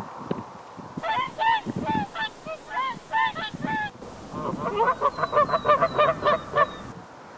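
Geese honking in quick runs of short calls: a first run from about a second in, then a denser, lower-pitched run of many overlapping honks from about four seconds in.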